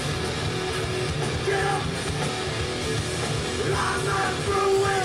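Live rock band playing loud, with electric guitars and drums. A voice sings over the band from about one and a half seconds in, strongest near the end.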